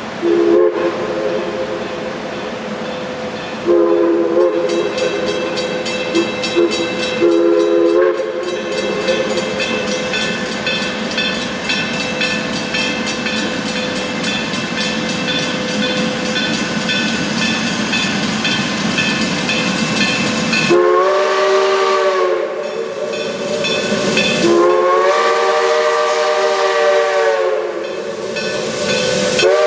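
Steam locomotive whistle sounding a chord in several blasts: a short one, then a long one, and two more near the end that slide up in pitch as they open and down as they close. Under them runs the steady noise of a moving train.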